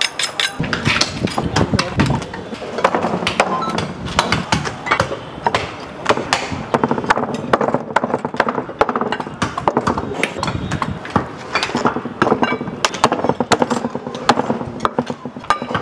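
A butcher's cleaver thwacking repeatedly into mutton and a wooden log chopping block, many quick irregular chops, as the meat is cut away from the bone. Background music plays under the chopping.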